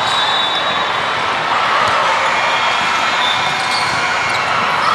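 Steady, echoing din of indoor volleyball play in a multi-court gym: balls being struck and bouncing on the hardwood, with many faint knocks and background voices.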